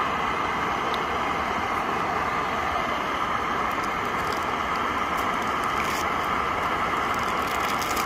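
Portable canister gas stove burner running under a cast-iron skillet: a steady hiss, with a few faint ticks in the second half.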